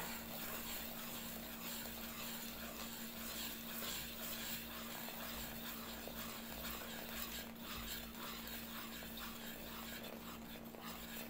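Faint, steady pouring of sparkling mineral water from a glass measuring cup into a bowl of flour batter, over a low, steady hum.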